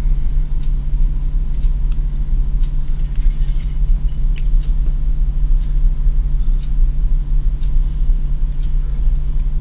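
Steady low mechanical hum, with a few faint clicks from the knife being handled.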